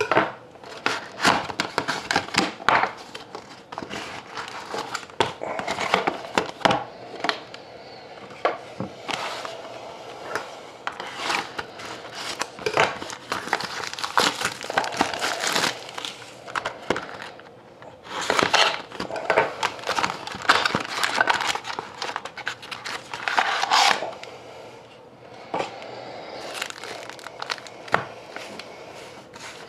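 Shiny wrappers of Fleer Retro hockey card packs crinkling and rustling as the packs are pulled out of a cardboard display box and stacked, in uneven bursts with many small clicks and taps.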